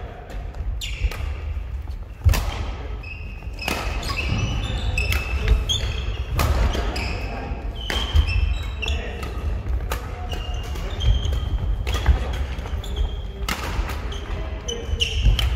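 Badminton doubles rally: rackets striking the shuttlecock in sharp cracks every second or so, with sneakers squeaking and feet thudding on the wooden gym floor.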